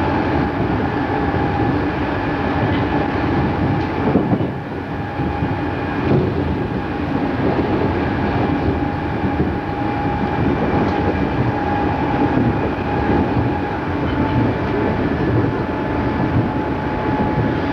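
Odakyu 8000 series electric train heard from inside the car while running between stations: a steady rumble of wheels on rail, a steady high whine, and a couple of knocks from the rails about four and six seconds in.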